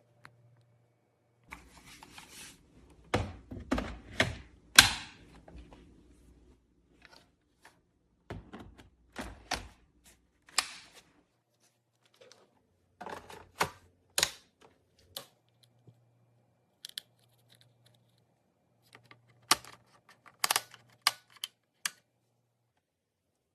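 Irregular clicks and knocks of the cordless stick vacuum's hard plastic parts being handled, in clusters with the loudest knocks about three to five seconds in and a brief low rumble under the first cluster. The vacuum's motor is not running.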